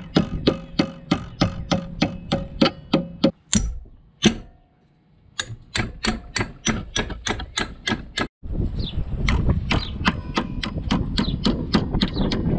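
Small sledgehammer striking a strip of sheet metal held in locking pliers, bending it into a bracket: quick, even blows about three a second, each with a short metallic ring. The blows pause for about a second around four to five seconds in, then carry on.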